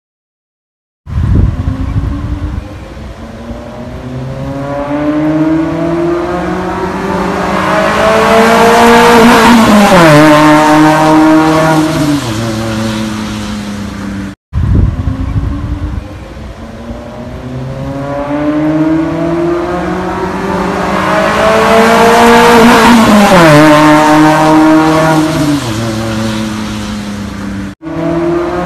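Suzuki Zen hatchback with a modified full-system exhaust making two loud flyby passes. Each time the engine note climbs in pitch as the car accelerates toward the microphone, drops sharply as it goes past, and falls away as it recedes. The sound starts about a second in, and the two passes are joined by an abrupt cut.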